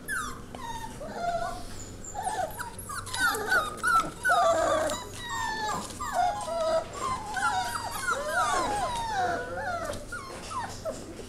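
Several Lab mix puppies whining and whimpering together, with high overlapping calls that slide up and down in pitch, loudest in the middle.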